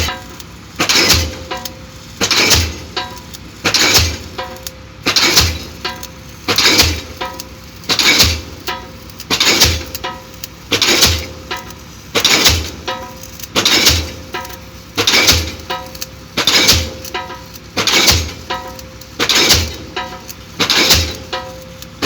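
Diesel pile hammer driving a spun concrete pile: a heavy strike about every one and a half seconds, each followed by a brief ringing tone.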